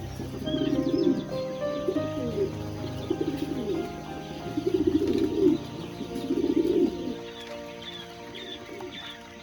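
Chickens giving low, rapidly pulsed trilling calls in about five short bursts, with faint high peeping, over background music.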